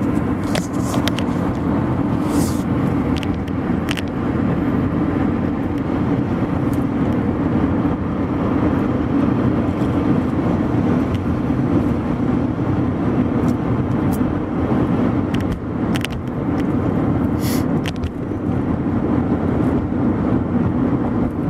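Engine and road noise inside a moving car, a steady drone with a few brief clicks now and then, picked up by a camcorder's built-in microphone.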